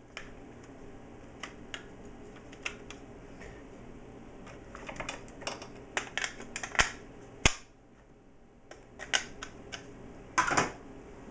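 Small plastic clicks and crinkling from a screwdriver set in its plastic case and bag being handled, with a few sharper snaps in the middle and a cluster of clicks near the end.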